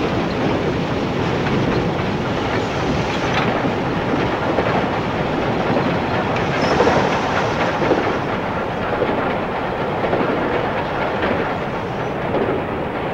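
Steam locomotive running at speed, heard from inside the cab: a steady, noisy din with the clatter of wheels on the rails.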